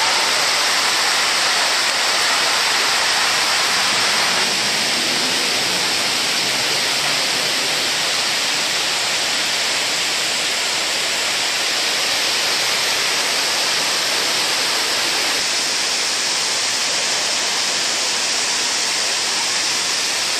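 Water of the 9/11 Memorial reflecting pool pouring down the pool's walls as a curtain-like waterfall, a loud, steady rush of falling and splashing water.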